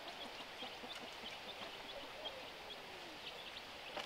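Faint farmyard ambience from free-ranging chickens: many short, high peeps scattered throughout, and one drawn-out low call that falls in pitch around the middle.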